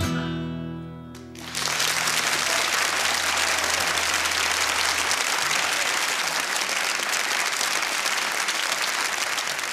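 The last chord of a song played on acoustic guitar rings out and dies away, then an audience breaks into steady applause about a second and a half in, easing off near the end.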